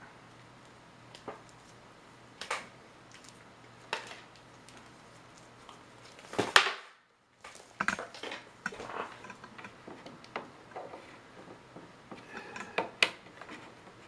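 Scattered clicks, knocks and clatter of small hard plastic items being handled, with one loud knock about halfway through, after which the sound drops out for a moment. Denser clicking follows as the multimeter's red test lead is handled at the meter near the end.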